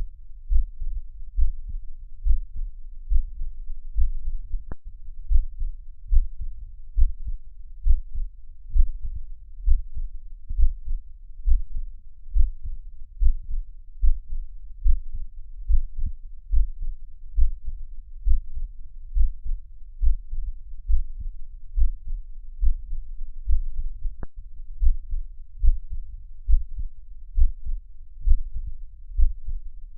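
Recorded heartbeat: low thumps in a steady, even rhythm, a little over one beat a second, with a faint click twice.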